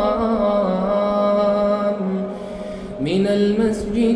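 Male voice reciting the Quran in slow melodic tajweed, holding one long drawn-out note. The note falls away about two seconds in, and a new phrase begins with a rising pitch about a second later.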